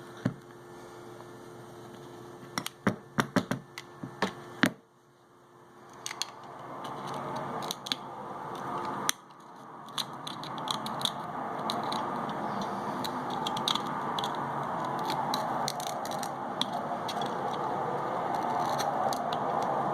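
Knife tip scraping and clicking against broken glass and the camera frame on the back of a Samsung Galaxy Note 5 as the leftover camera-lens glass is picked away. A steady rushing noise builds up from about six seconds in under the clicks.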